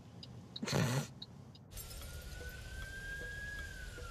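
Faint regular ticking, then a short loud voice-like sound about a second in. Near the halfway point a siren wail starts over road noise, rising slowly and then gliding down near the end.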